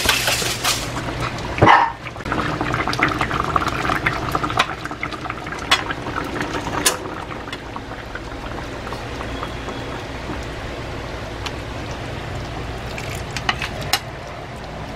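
Fish in coconut-milk sauce simmering in a pan, a steady bubbling over a low hum, with a few sharp clicks, the loudest about two seconds in.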